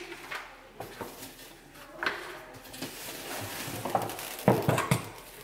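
Cardboard packaging and a plastic bag rustling and knocking as a boxed kitchen appliance is unpacked, with scattered clicks and a louder clatter of handling near the end.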